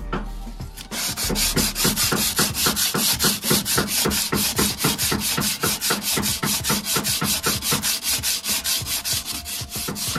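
Pink sanding sponge rubbed by hand back and forth over the chromed aluminium wheel rim, fast even strokes of about six a second starting about a second in, scuffing the oxidised chrome rough so primer will hold.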